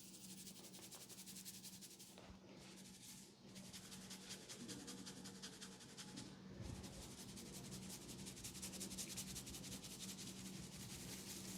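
Faint, fast rubbing of hands over hair and skin during a massage, pausing briefly a few times, over a steady low hum.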